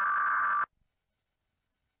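Emergency Alert System SAME header data burst, lowered in pitch: a steady two-tone digital screech that cuts off abruptly about two-thirds of a second in, leaving silence.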